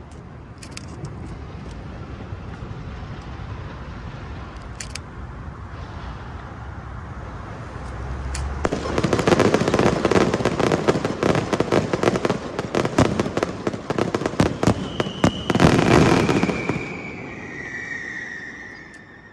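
A string of firecrackers going off in a dense, rapid crackle for about eight seconds, after a few scattered pops over a low rumble. Near the end a high tone slides downward.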